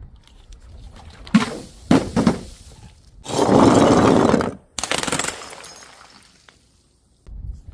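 Glass breaking: a few sharp knocks, then a loud crash lasting about a second and a half, followed by another smash whose high tinkling fades away.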